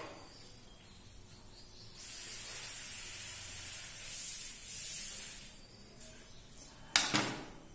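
Felt chalkboard duster wiped across a blackboard, a steady rubbing hiss lasting about three and a half seconds. Near the end comes a single sharp knock.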